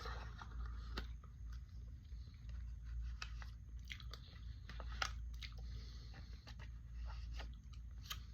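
Faint eating sounds of a person spooning and eating pudding from a plastic cup: scattered small clicks and mouth sounds over a low steady hum.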